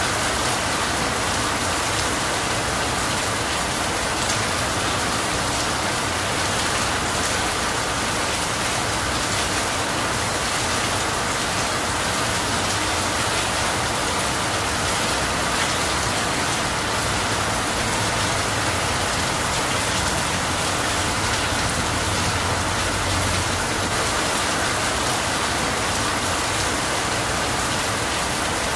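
Steady rain falling on leafy trees and running off a roof edge: a dense, even patter that holds unchanged throughout.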